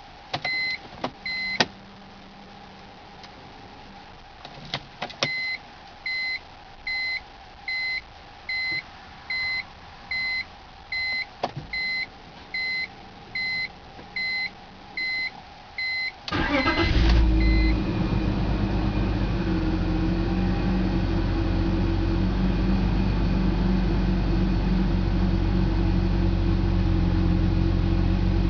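A car's warning chime beeps repeatedly, a little faster than once a second, after a few clicks. About sixteen seconds in, a BMW M54 2.5-litre straight-six cranks briefly, catches and settles into a steady idle. This is a cold start on an engine whose owner logs misfires on cylinders 3 and 5 until it warms up.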